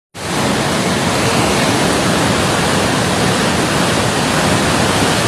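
Rushing floodwater: a loud, steady, unbroken noise of fast-moving water.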